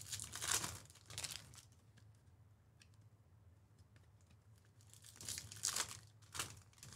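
Foil wrapper of a Bowman Chrome trading-card pack being torn open and crinkled by hand, in two bouts: one at the start and another about five seconds in, with quiet handling between.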